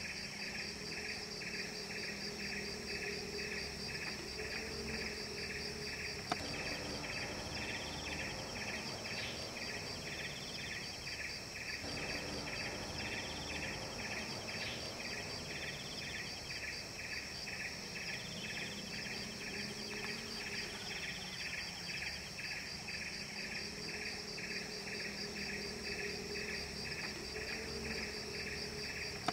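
Chorus of forest insects such as crickets or cicadas: a steady drone that pulses rapidly, with a single short click about six seconds in.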